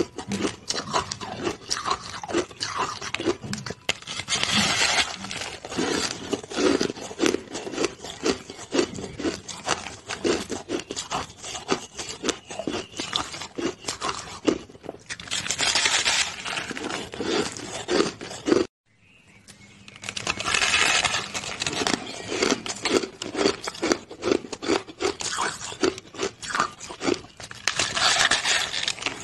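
Pink shaved ice being bitten and chewed, a dense run of rapid crisp crunches and crackles. The sound cuts out suddenly about two-thirds of the way through, then comes back.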